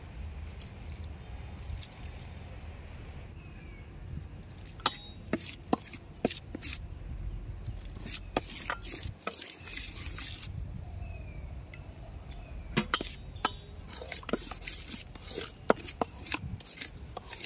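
Water poured from a steel tumbler into flour in a stainless steel bowl, then, from about five seconds in, a steel spoon mixing it into a thick spice batter, with scattered sharp clinks and scraping against the metal bowl.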